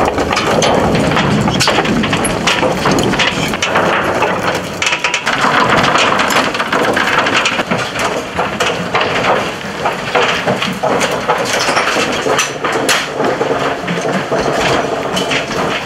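A dense, continuous clatter of many heavy boots running over a pier, stairs and a boat's deck, with knocks and rattling of gear as an armed squad storms aboard.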